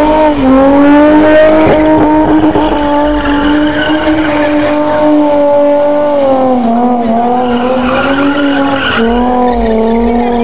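Car engine revved hard and held at high revs while the rear tyres spin and squeal in a burnout and drift. The revs climb right at the start, stay high, then dip and waver in the last few seconds.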